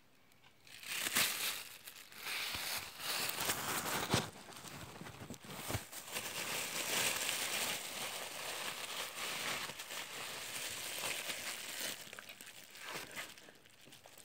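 Clear plastic bag crinkling and crackling as it is handled. It starts about a second in and eases off near the end.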